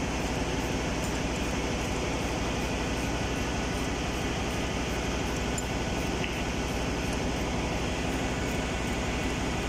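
Steady engine-room machinery noise: a constant low drone with an even rapid pulse underneath.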